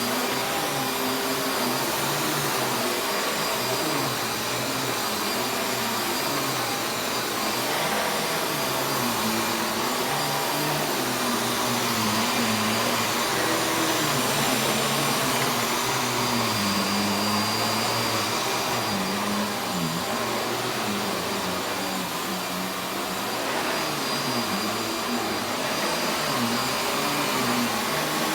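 Panasonic MC6955 dirt-sensor upright vacuum cleaner (11-amp motor) running steadily, its motor tone wavering slightly in pitch.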